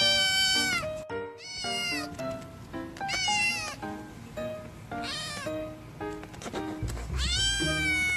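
A kitten meowing loudly and repeatedly: about five high meows, each rising and then falling in pitch, over background music.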